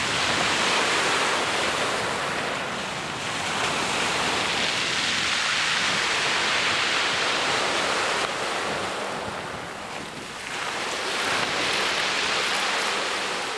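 Sea surf breaking and washing up the shore in surges, with wind buffeting the microphone. The wash swells and eases, dipping twice.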